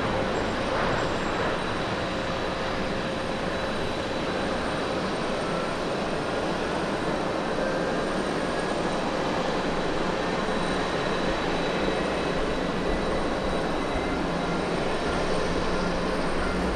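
Boeing 737-800's CFM56-7B jet engines during landing rollout, a steady rushing jet noise with a faint steady whine.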